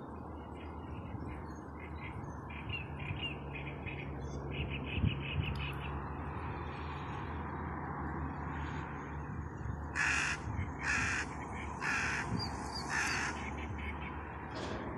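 A crow cawing four times, about a second apart.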